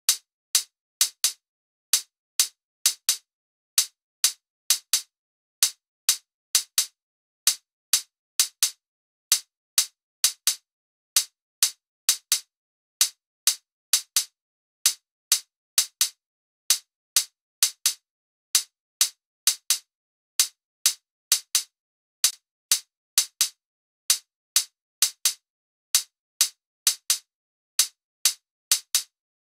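An isolated electronic drum-machine percussion part of short, bright, clicky hits with no bass. It plays several hits a second in a repeating syncopated pattern, with silence between the hits.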